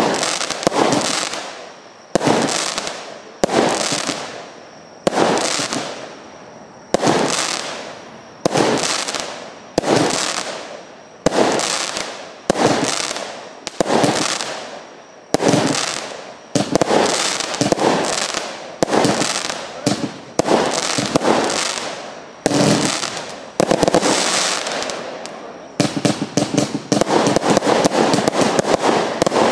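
A 180-shot compound fireworks cake firing: a steady string of shots about one every three-quarters of a second, each bang trailing off as its stars break and fade. About 26 seconds in it changes to a rapid barrage of shots in quick succession.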